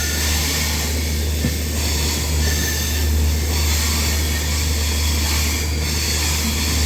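Passenger train running along the track, heard from inside a coach. The wheels on the rails make a steady deep rumble under a continuous hiss.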